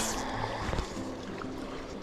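A river running high, a steady rush of water, with a brief loud whoosh right at the start.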